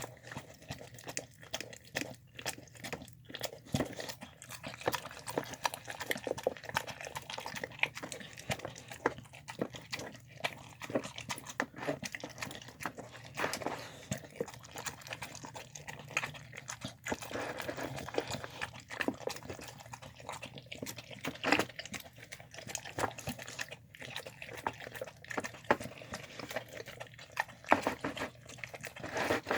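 A dog eating a meal of chicken, apple, white beans and rice: irregular chewing clicks throughout, with a few louder ones past the middle and near the end.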